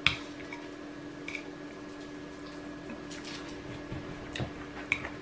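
Metal spoon clinking and scraping against a ceramic rice bowl: a sharp clink right at the start, then a few lighter taps, over a steady low hum.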